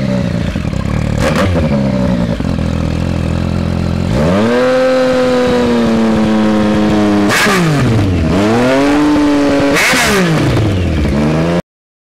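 Yamaha MT-09's inline three-cylinder engine breathing through a Spark aftermarket exhaust, revved while the bike stands. It idles with a quick blip about a second in, then revs up and is held high about four seconds in. It drops sharply and climbs again twice before the sound cuts off near the end.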